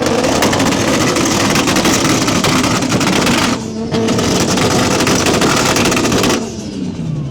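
A car engine revved hard through a loud exhaust in two long bursts, with a short break about three and a half seconds in.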